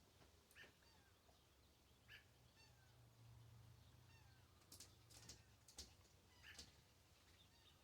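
Near silence, broken by a few faint short chirping calls and a few brief soft clicks a little past the middle.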